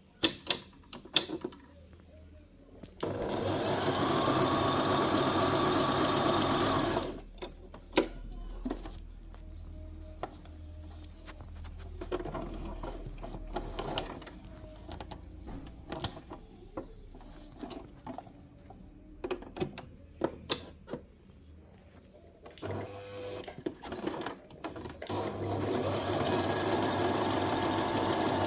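Brother JV1400 electric sewing machine running steadily in two stitching runs, one a few seconds in and one starting near the end. Between them the machine is stopped, with scattered clicks and knocks.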